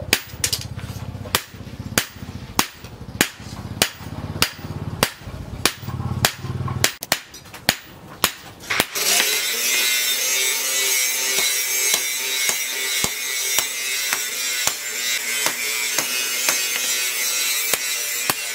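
Hand hammer striking a hot steel blade on a small anvil: sharp, regular blows, a little under two a second. About halfway through, a steady high hiss comes in and the blows become fainter under it.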